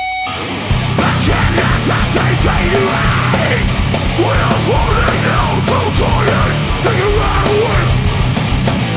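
Heavy metal band playing live, loud and dense. A held tone gives way to the full band crashing in under a second in.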